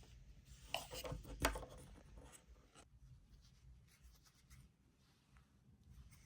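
Quiet handling noises from small gear and packaging: a few rustles and light knocks in the first two seconds or so, then faint scattered rubbing and ticks.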